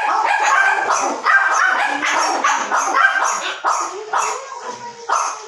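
Dog barking over and over in quick, short barks, about three a second.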